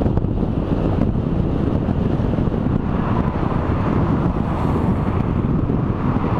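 Wind buffeting the camera's microphone while riding at speed: a steady, dense low rumble with no distinct events.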